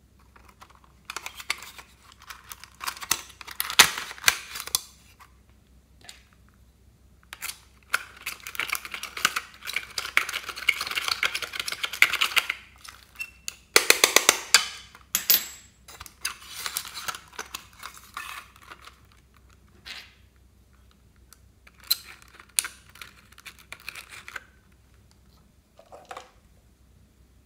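Makeup inside a plastic toy compact being scraped and picked at with a small pointed tool, with plastic clicks from the compact being handled. The sound comes in several bursts of scratchy scraping and sharp clicks, with short pauses between them.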